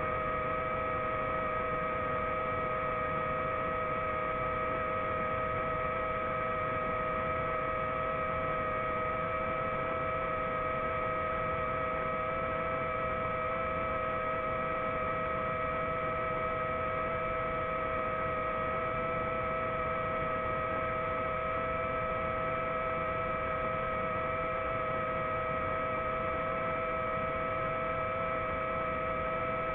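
Multirotor drone's motors and propellers whining steadily while it hovers, picked up by its own onboard camera: several unchanging pitches over a hiss.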